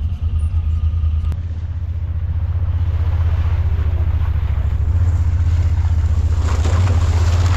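Vehicle engine running with a steady low rumble while under way, gradually getting louder, with wind noise on the microphone.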